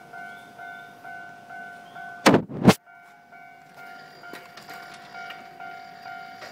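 Railway level-crossing warning bell ringing, a steady repeating ding about twice a second. A little over two seconds in come two loud knocks, and from about four seconds on the noise of an approaching train builds.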